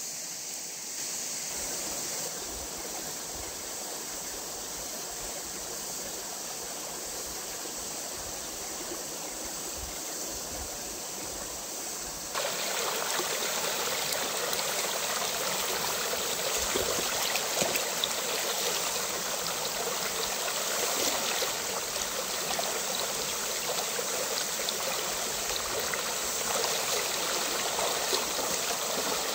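Stream water running steadily. About twelve seconds in it turns suddenly louder and fuller, and stays so.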